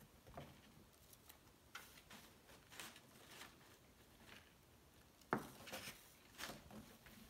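Faint, scattered rustling and scratching of crumpled packing paper and cardboard as a cat paws around inside an open box, with a sharper scrape or knock a little past five seconds in.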